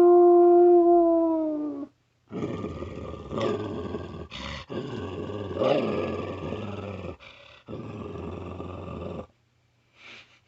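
A person imitating a canine with their voice: a held howl that sags slightly in pitch and stops about two seconds in, then about seven seconds of rough, raspy growling broken by a few short pauses.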